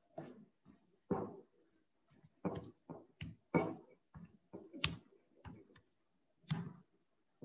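Computer keyboard being typed on: an uneven run of about a dozen separate key clicks as a short heading is typed.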